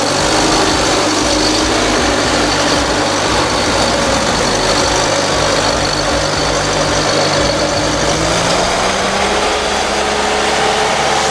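Bobcat 773 skid steer loader's diesel engine running steadily, rising in pitch as it speeds up a little past the middle.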